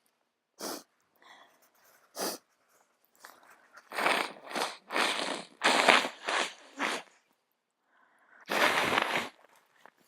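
A person with a cold sneezing and sniffing through an itchy nose: short sharp noisy bursts, a quick run of them in the middle and one longer burst near the end.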